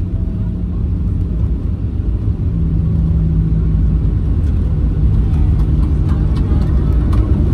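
Cabin noise of a Boeing 737-800 rolling out on the runway after touchdown, ground spoilers up: a heavy rumble from the wheels and CFM56-7B engines with a steady hum, growing a little louder in the first couple of seconds, with a few faint rattling clicks in the later seconds.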